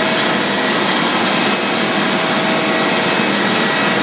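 Steady, unbroken rush of machinery running at a parked airliner on the airport apron, with a few steady whining tones on top.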